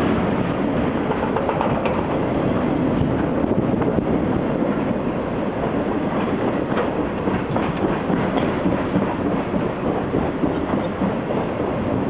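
Freight train boxcars rolling past at speed: a steady din of steel wheels on rail, with a few faint clicks scattered through it.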